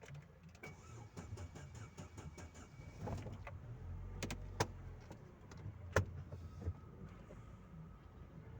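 Steady low engine and road rumble inside a Chevrolet Corsa Maxx's cabin, with a scatter of sharp clicks and knocks over it, the two loudest about four and a half and six seconds in.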